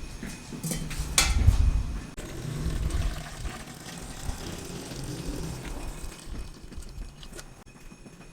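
Water pouring and splashing into a converted steel fire-extinguisher quench tank, filling it for a leak test, with a sharp knock about a second in.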